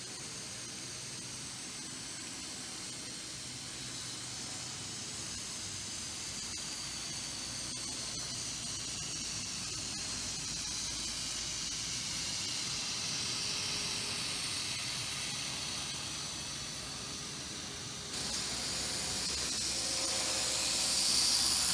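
Z-scale model trains running on the layout: a steady hiss with the faint high whine of the tiny locomotive motors, slowly rising and falling in pitch. It gets louder after a jump about three-quarters of the way through and is loudest near the end as a train passes close by.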